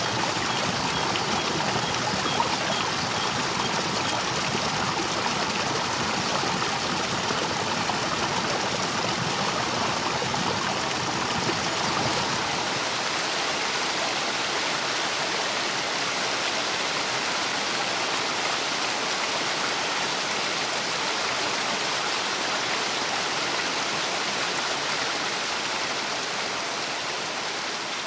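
River in spring flood rushing through rapids, a steady whitewater rush. The deepest part of the sound drops away about halfway through, and the sound fades slightly near the end.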